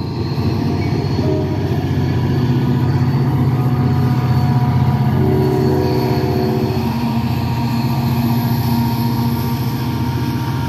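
NJ Transit diesel locomotive and passenger coaches passing: a steady diesel engine drone with the rumble of the train rolling on the rails.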